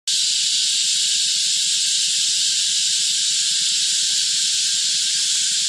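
Cicada chorus: a dense, steady, unbroken high-pitched hiss.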